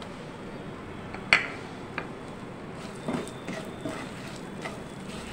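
A spatula tapping and scraping in a nonstick frying pan while chopped nuts and semolina are stirred in ghee, with one sharp knock about a second in and a few softer ticks later.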